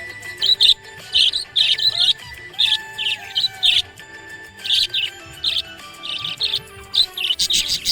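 Budgerigar chirping in quick clusters of short, high chirps, over background music with held notes.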